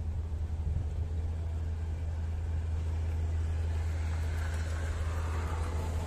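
Daewoo Matiz engine running at a steady idle, a constant low hum, with a hiss building over the last two seconds.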